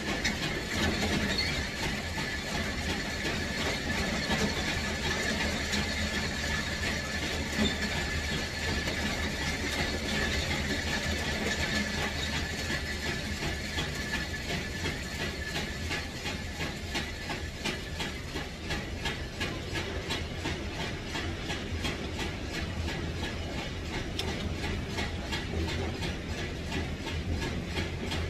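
Steady machine hum with a run of small, rapid clicks that grows denser in the second half.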